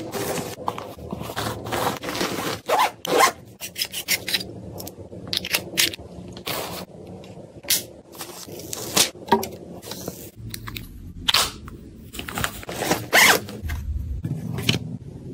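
Hands packing a fabric travel bag: irregular rustling, rubbing and scraping of the cloth and of the items pushed into it, with zipper-like strokes.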